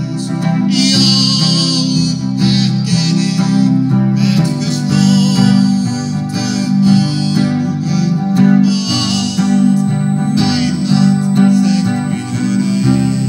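Instrumental music led by guitar.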